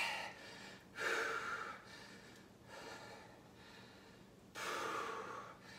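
A man breathing hard under exertion while doing resistance-band curls: two loud, hissing breaths about a second long, a little over three seconds apart, with a fainter breath between them.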